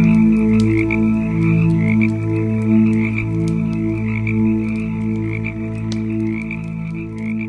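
Campfire crackling in sharp irregular pops, over layered low droning tones that swell and fade, with a warbling chirping higher up.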